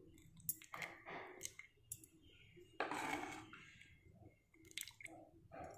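Thick mushroom soup served into a stainless steel bowl: a few light metal clicks, then a soft splash about three seconds in that fades over a second, with small clicks near the end.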